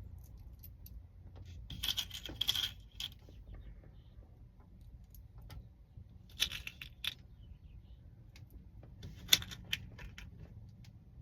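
Small metal parts clicking and clinking in three short clusters, about two, six and a half and nine seconds in: lock pins and locksmith's tools being handled while a pin-tumbler cylinder is rekeyed.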